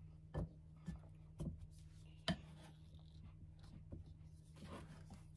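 Spatula stirring stiff bread dough in a glass bowl: soft scraping and rubbing, with a few sharp knocks of the spatula against the bowl in the first couple of seconds. A faint steady hum lies underneath.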